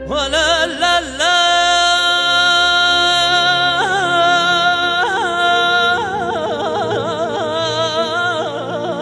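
A male singer's voice sings long drawn-out notes without words over instrumental accompaniment. It swoops up into the first note, holds steady notes, then from about two-thirds of the way in turns to a wavering, quickly ornamented melismatic line.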